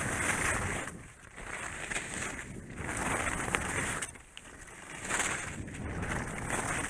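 Ski edges scraping across snow in repeated swells of hiss, one every second or two as the skis are edged and released through the turns, with wind on the microphone.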